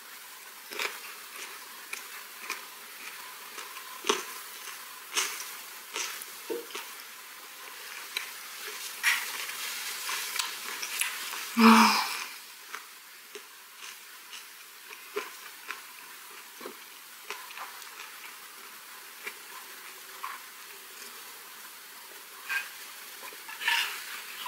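Close-miked mouth sounds of chewing a wrap of half-dried herring gwamegi with seaweed and vegetables: a run of small wet clicks and smacks. There is one louder thump about halfway through and a few gulps near the end.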